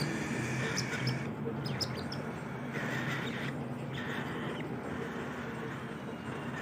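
Baby cockatiel's raspy begging calls as it is fed, coming in bouts of about a second, over a steady low hum.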